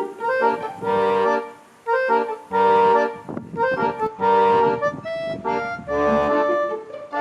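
Background music: a melody in phrases of held, reedy notes with short pauses between them.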